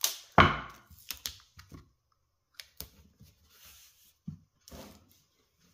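Glued hardwood shelf pieces being handled and pressed together: a sharp wooden knock about half a second in, followed by a few lighter taps, clicks and rubbing of hands on the wood.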